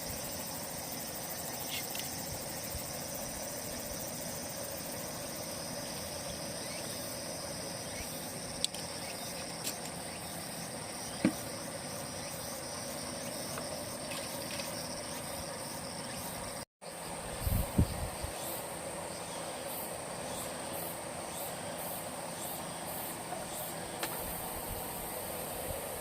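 Steady, high-pitched chorus of insects trilling, with a few light clicks. After a short break about two-thirds of the way in, some low knocks and thuds are heard over it.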